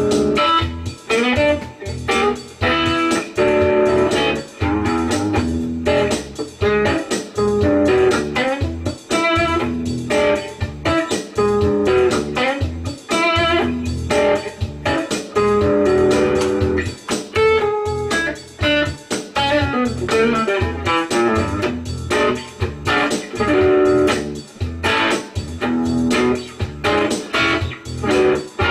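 A 1956 Danelectro U-2 electric guitar being played: a continuous run of picked single notes mixed with chords.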